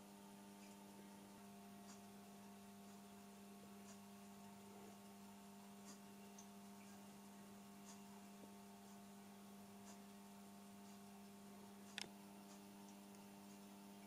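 Near silence: a faint steady electrical mains hum, with faint ticks about every two seconds and a single sharper click about twelve seconds in.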